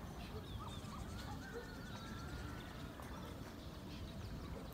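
Birds chirping and whistling, including one longer wavering whistle about a second and a half in, over a steady low rumble.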